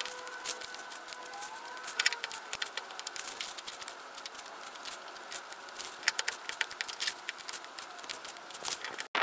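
Black plastic garbage bag crackling and rustling as handfuls of pulled grass are pushed into it, in many short sharp crackles over a faint steady hum.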